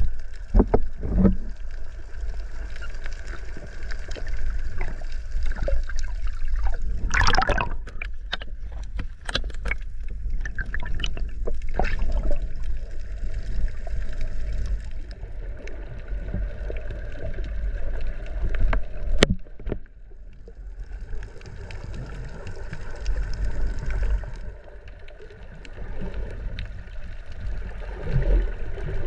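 Water sloshing and gurgling, with scattered splashes and a steady low rumble underneath.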